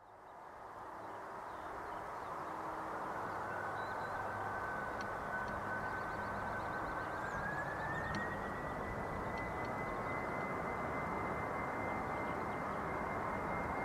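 Jet engines of a Boeing 747-400M running with a steady rumble and a high fan whine that rises in pitch about halfway through and then holds steady.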